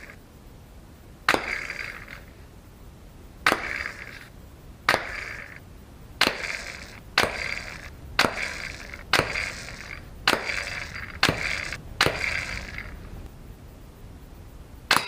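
Shots from a homemade PVC sling-rifle firing 3/8-inch steel ball bearings: about ten sharp cracks, each followed by a brief ringing rattle, coming roughly once a second through the middle.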